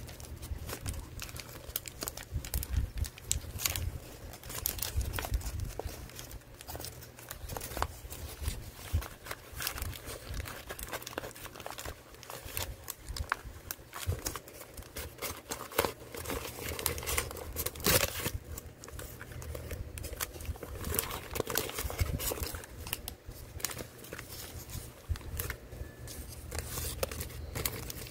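White paper wrapping handled and torn open by hand: irregular crinkling, rustling and tearing throughout.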